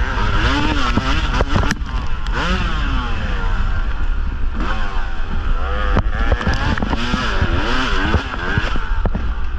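Yamaha YZ250 single-cylinder two-stroke dirt bike engine revving up and falling back over and over while ridden on a rough trail, with sharp knocks and clatter from the bike over bumps and a heavy low rumble on the on-board microphone.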